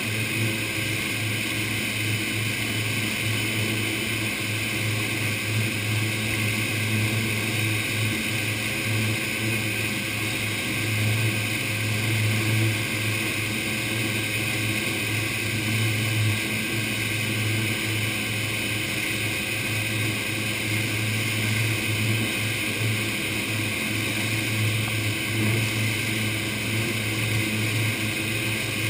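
Motorboat running at speed: a steady low engine drone mixed with the rush of churning wake water.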